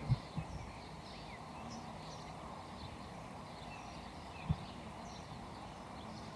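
Faint outdoor background with scattered small bird chirps, and a few dull low thumps, two just after the start and one about four and a half seconds in.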